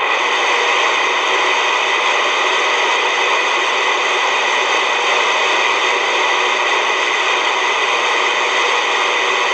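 Steady, loud hiss of static from a base-station CB radio's speaker, with the squelch open and no station coming through: the band noise of channel 6 between skip transmissions.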